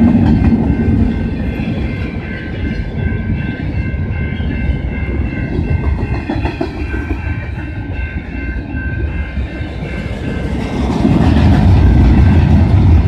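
Train cars rolling past a grade crossing at close range: a loud, steady rumble of wheels on rail with clickety-clack over the joints and a steady high ringing above it. It grows louder again about eleven seconds in.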